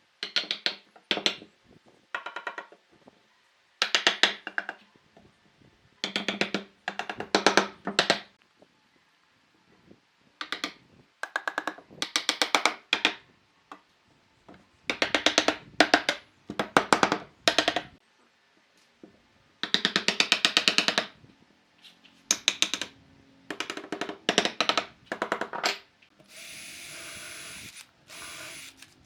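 A power tool hammering in rapid bursts of about half a second to a second and a half, over and over, as it works into wood. Near the end a steadier drill-like whine starts.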